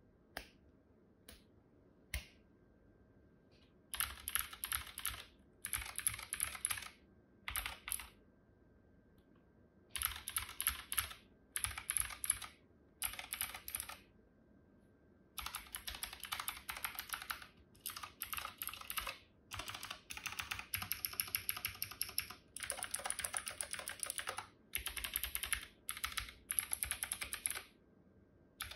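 Mechanical keyboard being typed on for a sound test: a few single keystrokes, then fast runs of typing, one to two seconds each with short pauses, nearly continuous in the second half.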